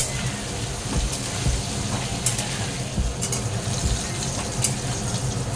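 Halved potatoes sizzling as they fry in mustard oil in a metal kadai, being fried light golden. A steel spatula scrapes and taps against the pan a few times.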